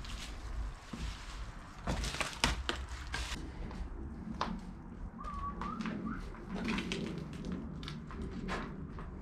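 Footsteps and knocks on scattered debris: a cluster of sharp clicks and knocks about two to three seconds in, more spaced out later. A short warbling chirp comes about halfway through.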